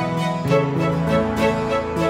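Background music: sustained pitched notes over a steady beat, with the chord changing about half a second in.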